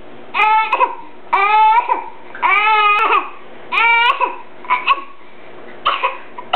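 Baby making short whiny crying sounds: four high wails in the first four seconds, each rising then falling, then a few shorter, rougher bursts near the end.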